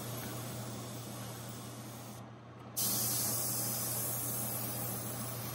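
Airbrush spraying paint: a steady hiss that stops for about half a second a little after two seconds in, then starts again as the trigger is pressed once more. Under it runs a steady low hum.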